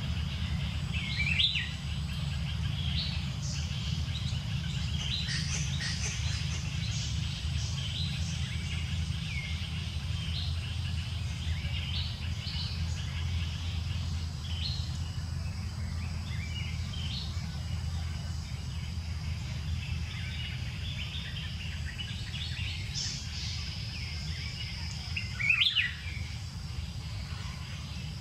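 Forest ambience: birds chirping on and off throughout, over a steady high insect drone and a constant low rumble. Two louder, sharper calls stand out, one about a second and a half in and one near the end.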